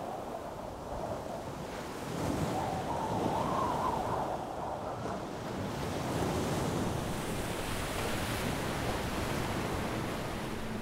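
Ocean waves washing and wind blowing in a steady rush that swells louder about two seconds in.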